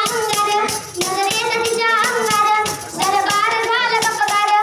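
A boy singing a powada, a Marathi heroic ballad, in a strong, sustained voice while beating a small hand-held frame drum in a steady rhythm.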